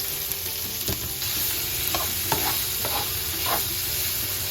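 Pork belly sizzling in hot oil in a frying pan, with a few scrapes and clicks of a utensil against the pan as it is stirred and turned.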